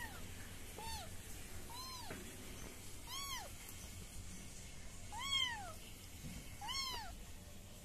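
Young kitten mewing: six short, high mews spaced one to two seconds apart, each rising then falling in pitch.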